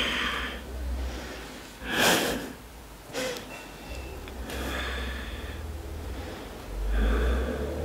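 Loud, audible breathing: several irregular breaths a second or two apart.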